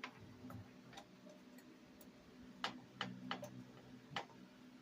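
Light plastic clicks and taps from a plug being pushed into a socket and handled: one click at the start, then four more, about 2.5 to 4 seconds in. A faint steady electrical hum lies underneath.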